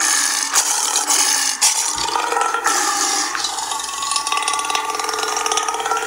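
Designed monster call for a griffon, layered from processed animal growls and roars. It is a continuous rasping, rattling growl-screech with a wavering tone running through it.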